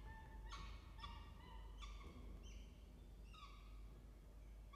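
Peregrine falcon chick begging at the nest: a faint run of short, thin, repeated calls, about two a second, as a parent feeds it.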